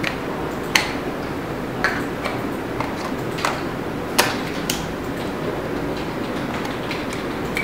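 Scattered sharp plastic-and-metal clicks as a lens is twisted onto a Canon EOS 60D DSLR body and the camera is handled: about six clicks, over steady background noise.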